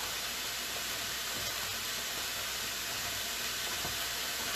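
Food frying in a pan on the stove, a steady sizzle.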